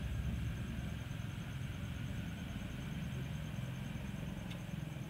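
A steady low mechanical hum, with faint rubbing and rustling of hands working crumbly dough in a steel bowl.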